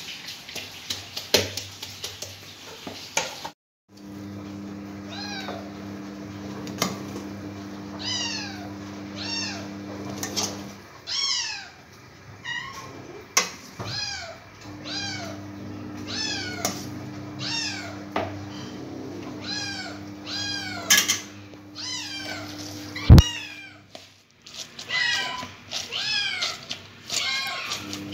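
Cats meowing over and over, many short rising-and-falling meows about a second apart, overlapping near the end, over a low steady hum that comes and goes. There are a few clicks in the first three seconds, and one sharp, loud knock about 23 seconds in.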